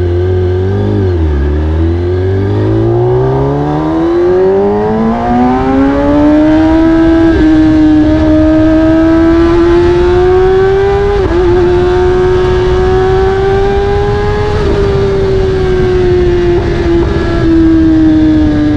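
Kawasaki ZX-10R inline-four engine through an Akrapovic carbon exhaust, revving up hard. The pitch climbs steeply over the first few seconds and then holds high and rising. It dips briefly three times and eases down near the end.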